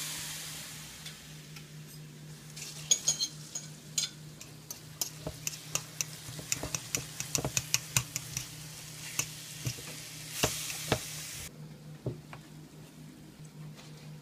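Raw ground turkey sizzling in a hot ceramic-coated frying pan while a utensil breaks it up and stirs it, with many quick clicks and scrapes against the pan. The sizzle fades over the first second and swells again briefly about ten seconds in.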